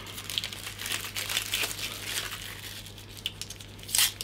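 Packaging being peeled by hand off a small spool of 0.9 mm flux-cored welding wire, crinkling and crackling irregularly, busiest near the start and again near the end.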